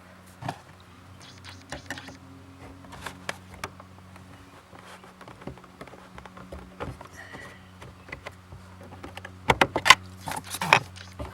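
Scattered clicks, taps and light rattles of parts being handled by hand as the Audi A8's plastic fuel pump control module is worked into place, with a burst of louder clatter near the end.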